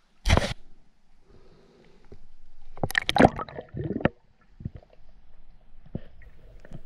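Water splashing and sloshing as a diver goes under the surface: a sudden splash shortly after the start, then a cluster of gurgling, bubbly knocks and a few smaller clicks heard underwater.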